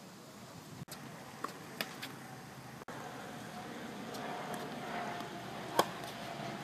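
Tennis racket striking the ball: a sharp pock about six seconds in, the loudest sound, with a couple of fainter pocks earlier. Under it a distant engine drone grows louder in the second half, its pitch slowly falling.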